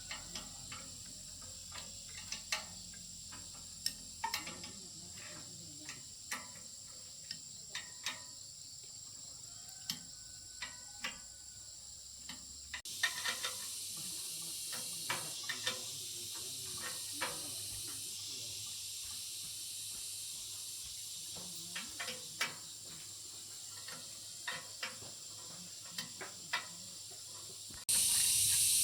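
Scattered light clicks and taps of hand tools at work on a machine under repair, over a steady hiss. The hiss gets abruptly louder about thirteen seconds in.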